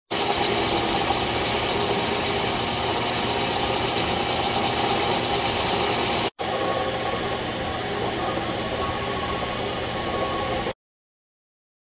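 Metal lathe running and turning a steel bar, the cutting tool taking a cut: a steady machine hum with a hissing cutting noise. It drops out briefly about six seconds in and stops abruptly near the end.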